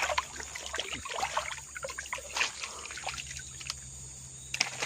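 Small splashes and trickling water, busiest over the first three seconds, then quieter with a couple of single drips or clicks near the end.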